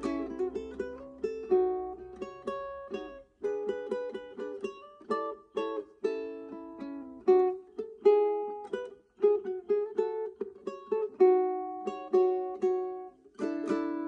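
Solo Purity ukulele played fingerstyle, a plucked melody over chords in an instrumental piece. The notes pause briefly about three and nine seconds in.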